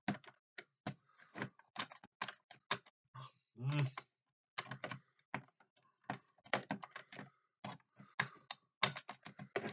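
Irregular clicks and taps of small hard plastic parts being handled, with a short murmur about four seconds in.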